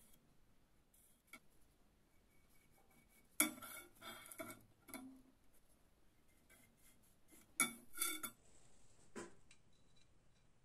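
Faint metallic clinks and light scrapes as steel hand tools (a square and a vernier caliper) are handled against a small metal end-plate blank on a metal workbench. The clinks come in short clusters: a few near the middle, then a louder pair later, then a single one near the end.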